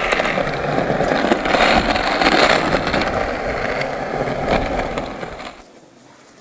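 Skateboard wheels rolling on pavement, a steady rumble with scattered small clicks and knocks, dying away about five and a half seconds in.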